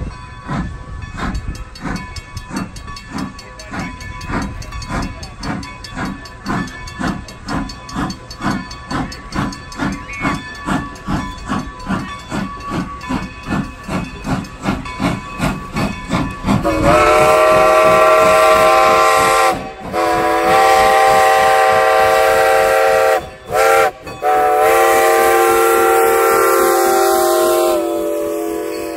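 A 2-10-0 steam locomotive working under power, its exhaust chuffing in a steady beat of about two a second. Then it sounds its steam whistle in the grade-crossing pattern: two long blasts, one short, one long.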